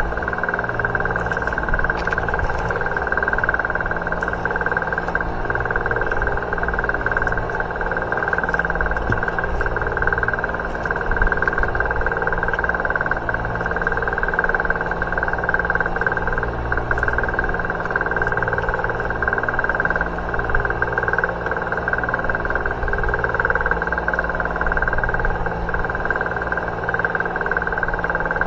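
Engine running with a steady, unchanging drone and a constant higher whine over it.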